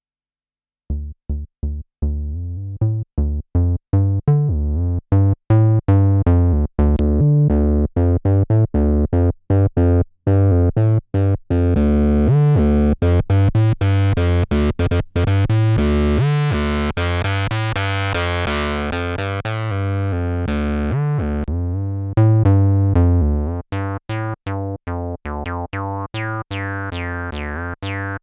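Behringer TD-3 (a TB-303-style monophonic analog bass synth) playing a sequenced acid bassline through its built-in distortion: a steady run of short, squelchy, resonant notes. The bassline starts about a second in, grows brighter and buzzier through the middle as the filter opens, then turns duller again toward the end.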